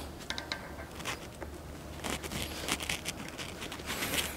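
Light metal clicks and scrapes of snap ring pliers working the axle snap ring out of a Dana 60 front hub, with a few faint metallic tings, over a low steady hum.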